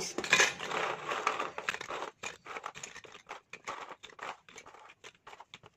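Oreo cookies sliding off a plastic plate into a stainless-steel mixer jar of biscuits: a dense clatter of small clicks and rustling over the first two seconds or so, thinning to scattered single clicks as the last cookies drop and settle.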